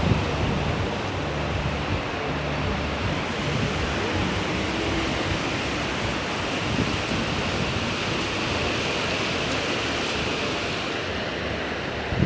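Ocean surf on a beach: waves breaking and washing up the shore as a steady, even rushing.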